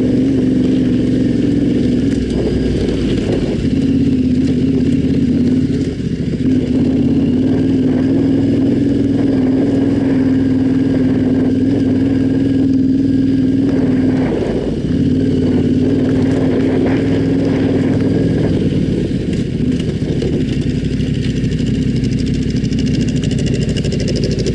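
Yamaha Ténéré 700's parallel-twin engine running under steady throttle while riding, its note dipping briefly a few times.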